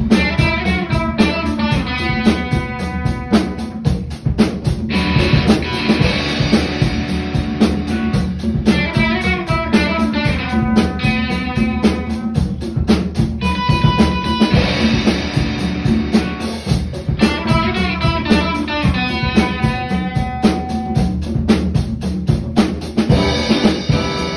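Rock music with a full drum kit keeping a steady, busy beat under guitar and a melodic line that rises and falls.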